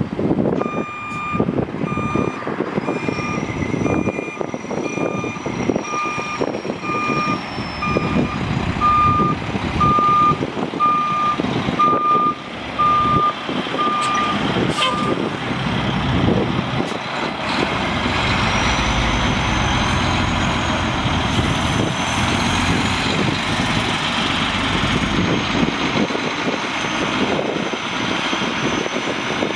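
2007 Mack CTP713 dump truck with its Mack MP7 10.8 L six-cylinder turbo diesel running, its reverse alarm beeping steadily about once a second for the first half while it backs up. The beeping then stops and the engine runs on evenly, with a faint high whine rising and falling above it.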